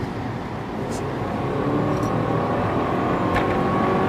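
Turbocharged flat-four engine of a 2005 Subaru Legacy GT accelerating hard on a test pull, heard from inside the cabin: the engine note climbs steadily in pitch and grows louder as the revs build.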